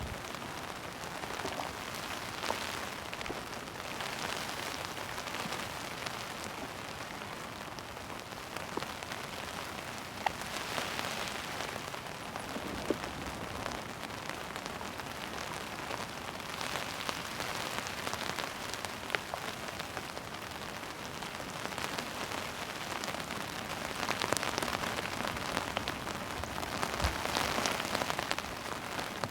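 Heavy rain falling steadily, with scattered sharper drop strikes; it gets a little heavier in the last few seconds.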